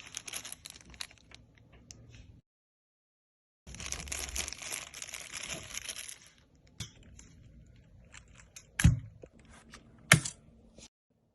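Packaging crinkling and rustling in two stretches with a dead-silent gap between, then scattered light clicks and two sharp knocks near the end.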